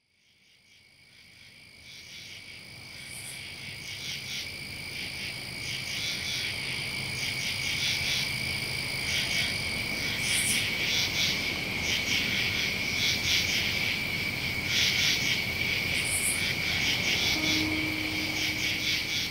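Night chorus of frogs and insects fading in from silence over the first few seconds: a steady high chirring with rapid pulsing calls over it. A low held tone comes in near the end.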